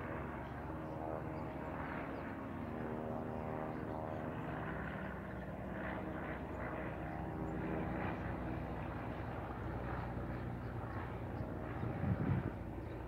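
Small single-engine propeller plane flying overhead with a steady engine drone. About twelve seconds in there is a brief low rumble, louder than the drone.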